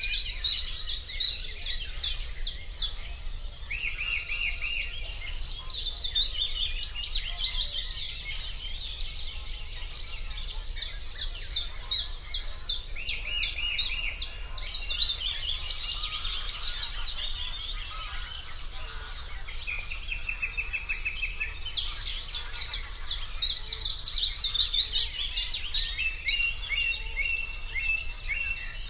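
Sedge warbler singing its long, hurried song of fast, scratchy chattering notes, broken every few seconds by buzzy trills, in louder spells of a few seconds.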